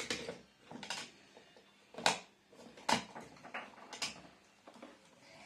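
Plastic toy doctor-kit instruments clacking against each other and their plastic cup as they are picked through: a string of separate clicks and knocks, the loudest two about two and three seconds in.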